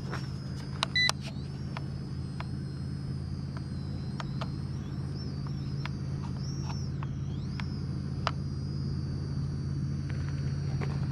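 Small quadcopter drone flying at a distance, its high motor whine wavering up and down in pitch as it is steered, over a steady low rumble. Scattered light clicks are heard, with a short beep about a second in.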